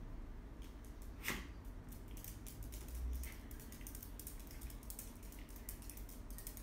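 A puppy's claws clicking and tapping irregularly on a tiled floor as it moves about, faint, with one sharper click about a second in.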